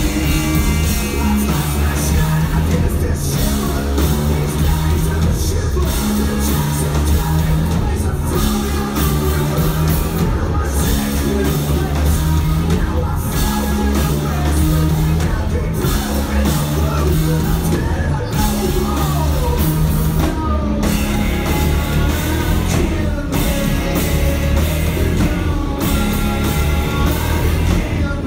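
Live rock band playing loud, heavy rock with electric guitar, bass and drum kit, and singing over it through much of the song.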